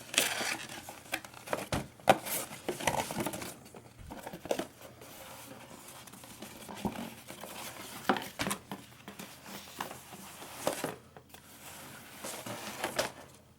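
A cardboard subscription box being unfolded and refolded inside out by hand: irregular crinkling, creasing and rustling of cardboard, with sharp clicks and taps.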